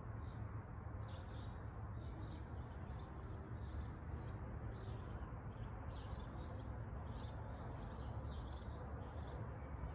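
Small birds chirping, short high chirps and little glides coming every second or so, over a steady low rumble.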